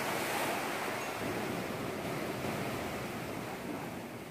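Ocean surf: a steady rush of waves breaking on the shore, slowly fading out.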